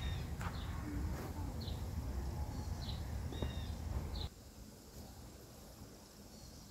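Woodland ambience: a bird chirping in short high calls several times over a low steady rumble, with a few faint clicks. About four seconds in, the rumble drops away abruptly, leaving a quieter hiss.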